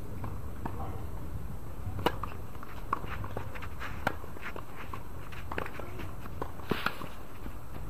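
Tennis ball struck by rackets in a rally on a hard court: a sharp serve strike about two seconds in, then fainter and nearer hits traded back and forth, with a quick double knock near the end. Under it is a steady low hum.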